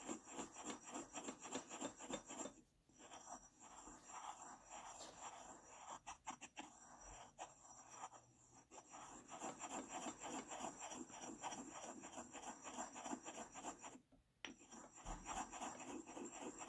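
Marble pestle grinding pink chalk and acrylic powder in a marble mortar: a faint, quick, rhythmic gritty rubbing that stops briefly twice.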